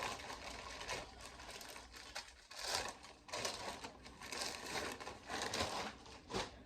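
Packaging being handled during a shoe unboxing: paper or plastic wrapping rustling and crinkling in irregular bursts.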